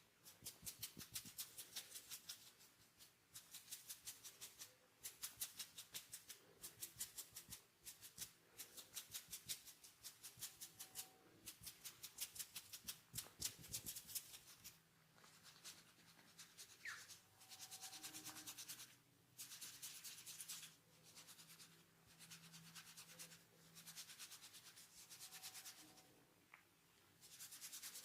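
Hands rubbing and scratching through hair and over the scalp in a head massage, close to the microphone. Quick crackling strokes come in fast runs for the first half, then give way to longer spells of steady rubbing with short pauses.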